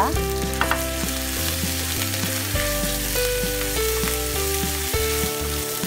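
Spices frying in hot oil in a frying pan, a steady sizzle, stirred with a wooden spoon. Soft background music of sustained notes plays over it.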